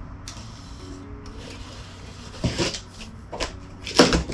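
Quiet background music with a few short rustling and rubbing bursts of a cardboard box being handled and opened, the loudest about four seconds in.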